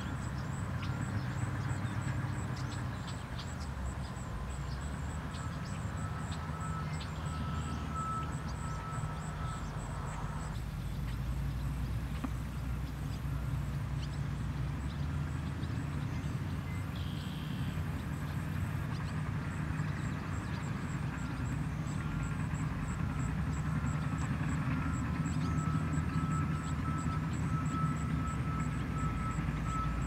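Outdoor ambience: a steady low rumble, with a faint, fast, even high-pitched ticking running over it.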